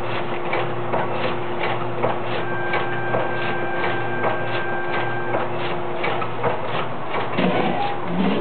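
Volumetric vertical form-fill-seal packaging machine running, clicking in an even rhythm of about three clicks a second over a steady hum and a pulsing low drone as it forms, fills and seals sachets. A brief, louder, lower sound comes near the end.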